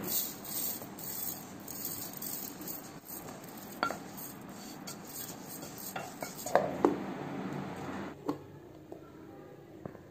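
Roasted pearl millet grains poured from a pan into a stainless-steel mixer-grinder jar: a steady rush of grains pattering on the steel, with a few sharp clinks of the pan against the jar, stopping about eight seconds in.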